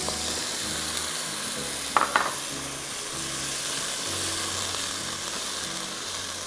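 Boiled chicken pieces sizzling in butter in a nonstick frying pan as stock water is poured in, then stirred with a spatula. The sizzle is a steady hiss.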